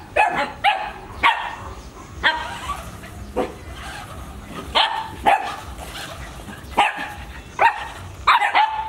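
A dog barking repeatedly in short, sharp barks at an irregular pace, with gaps of a second or so between them.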